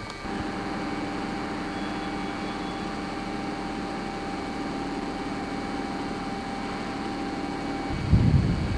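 Steady machine hum with a thin high tone over it, from a standing HÉV MXA electric multiple unit. Near the end, wind buffets the microphone with loud, uneven rumbling.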